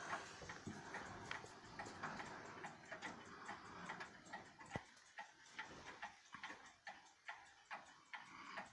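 Mechanical pendulum clock ticking steadily, with faint rustling of handling in the first half that dies away about halfway through.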